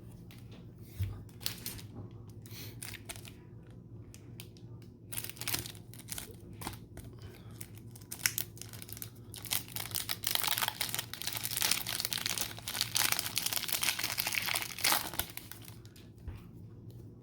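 A foil trading-card pack being torn open, its wrapper crinkling, with light handling clicks at first and the loudest crinkling from about ten to fifteen seconds in.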